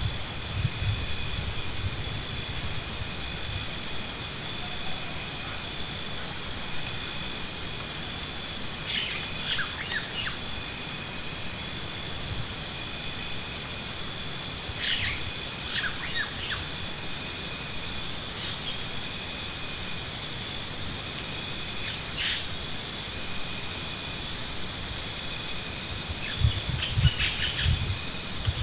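Insects calling: steady high-pitched singing with repeated trills of rapid pulses, each about three seconds long and coming every few seconds. A few short bird chirps and a couple of low thumps near the end.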